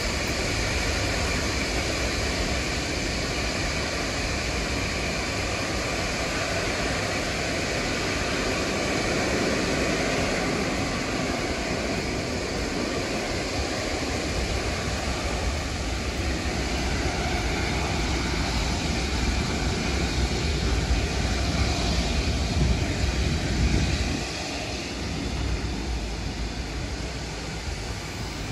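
Antonov An-124-100's four Progress D-18T turbofan engines running at taxi power as the freighter taxis and turns: a steady jet whine over a low rumble, growing a little quieter about 24 seconds in.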